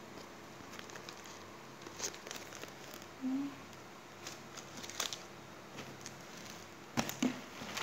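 Plastic-wrapped cracker packets crinkling as they are handled, in a few short scattered rustles and clicks.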